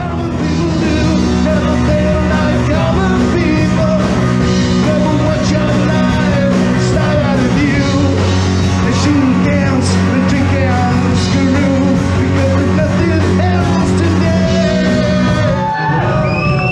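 A rock band playing live with a singer.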